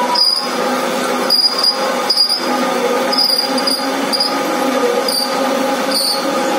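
Automatic lathe cutting copper bar stock under coolant: a steady machine hum with short, high-pitched squeals of the tool on the copper, repeating several times.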